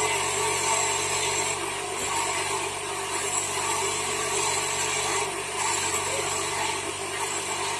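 Electric lapidary grinding wheel running steadily while a wet agate cabochon is held and ground against its rim: a continuous motor hum with the rasp of stone on the wheel.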